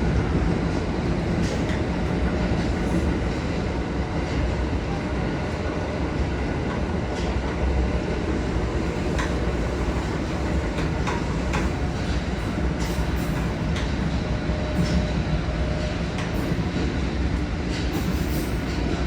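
Osaka Metro Chuo Line train running, heard from inside the car: a steady low rumble of wheels on rail, with occasional sharp clicks that come more often near the end.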